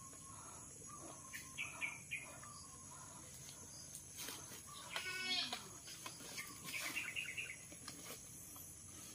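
Outdoor ambience: birds chirp now and then over a steady high-pitched hiss, and one short animal call falling in pitch comes about five seconds in.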